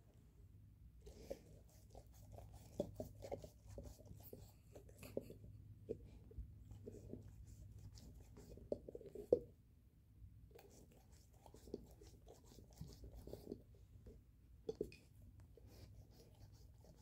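A Great Pyrenees gnawing and chewing a beef marrow bone: irregular scraping and clicking of teeth on bone. The loudest cluster of crunches comes about nine seconds in, followed by a short lull.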